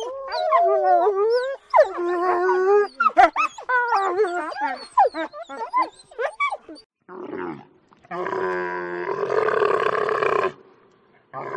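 Coyote yipping and howling in high, quickly wavering calls that overlap, for about the first seven seconds. After a short pause, a dromedary camel gives a low, rough, pulsing bellow for about three seconds.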